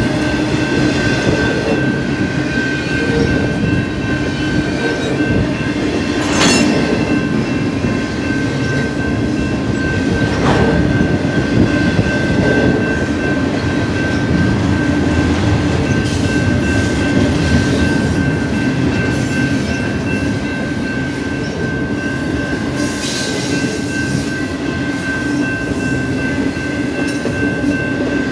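Double-stack intermodal freight cars rolling past close by: a steady, loud rumble of steel wheels on the rails, with two sharp knocks about six and ten seconds in. The grade-crossing bell rings steadily over it.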